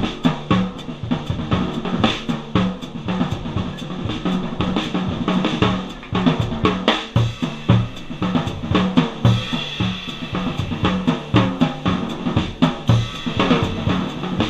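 Drum kit solo in a live jazz setting: quick, dense strikes on snare, toms and bass drum, with rimshots and cymbal hits.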